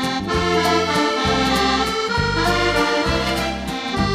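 Background accordion music: sustained chords over bass notes on a steady beat.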